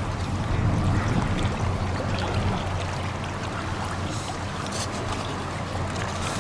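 Steady wind and small waves lapping on choppy lake water.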